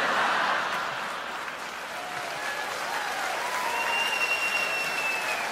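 Audience applauding, loudest at the start and easing off, with a few high held notes sounding over the clapping in the second half.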